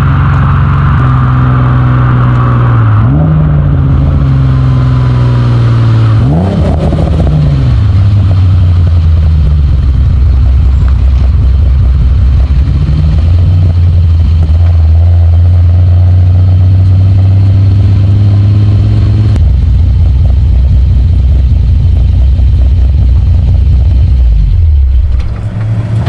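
Exhaust of a modified 3.0-litre Alfa Romeo GTV6 V6 while driving, heard close at the tailpipe. The revs rise and fall twice in the first seven seconds or so, then the engine holds a steady cruise, with the pitch dropping again near the end.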